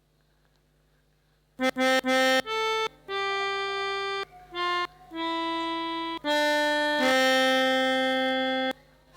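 Melodica (pianika) playing a telolet bus-horn tune after a moment of near silence: three quick notes, then longer held notes mostly stepping down in pitch, ending on a long low note.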